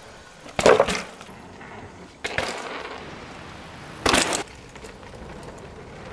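Mountain bike landing on and rolling over wooden ramp boards: three sharp wooden knocks about a second, two and four seconds in, with a rolling hiss between them.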